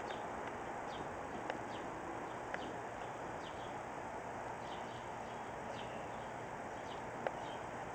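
Small birds chirping now and then, short high falling chirps over a steady background hiss, with a brief sharp click about seven seconds in.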